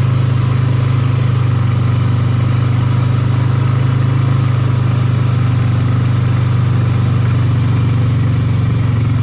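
ATV engine running steadily at low, even speed while riding.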